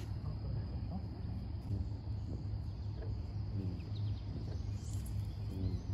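Outdoor ambience: a steady low rumble with faint bird calls and chirps over it, a few clustered about four to five seconds in.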